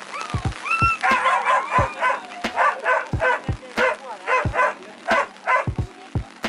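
Dogs on leads whining briefly, then barking and yelping rapidly, about two to three barks a second, from about a second in. Dull thumps come in between the barks.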